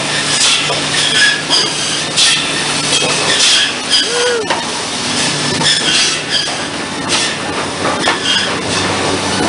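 Cedar shake mill machinery running: a continuous metallic clatter with knocks about twice a second over a low steady hum, and a short squeak about four seconds in.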